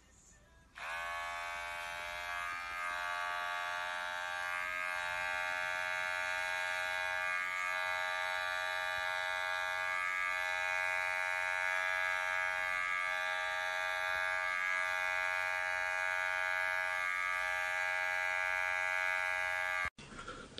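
Electric pet hair clippers buzzing steadily as they run over a cat's belly fur. They switch on about a second in and stop abruptly near the end.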